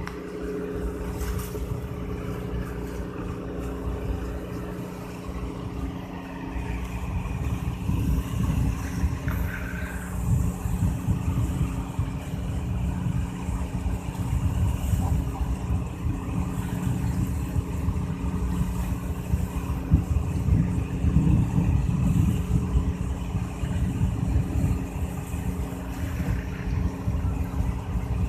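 A fishing boat's inboard engine running steadily under way, a constant low hum, with water rushing along the hull.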